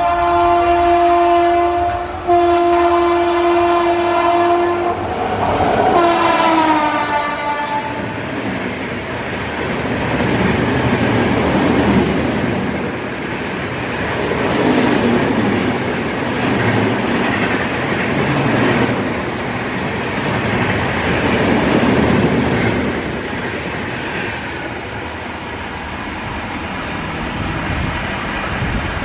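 Indian Railways WAP7 electric locomotive's horn sounding two long two-tone blasts, then a shorter one that drops in pitch as the locomotive passes. The superfast express's coaches then rush past with a steady roar and wheel clatter.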